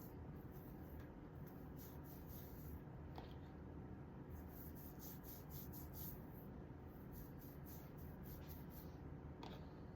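Quiet scratchy rubbing of hair, in runs of short strokes, as a hair mask is worked through it.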